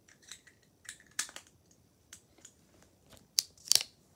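Handling noise from hands working small objects: a run of light clicks and rustles, sparse at first and louder and closer together in the last second or so.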